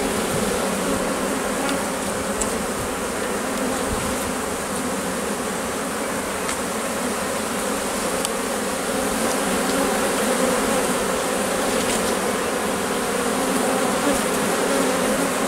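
Honeybees buzzing steadily in a dense, agitated hum over an opened hive, flying in all directions. The colony is nervous, and the beekeeper suspects it has lost its queen.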